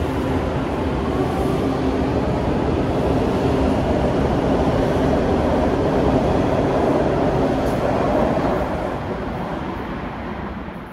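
Washington Metro railcars moving out along the far platform track: steady rumble with a steady hum through the middle, fading away over the last couple of seconds as the train leaves.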